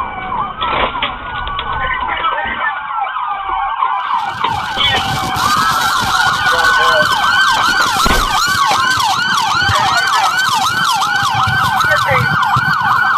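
Police patrol-vehicle sirens: in the first few seconds a slower wail overlaps a faster one, then a single siren runs on in a fast yelp, rising and falling about three to four times a second.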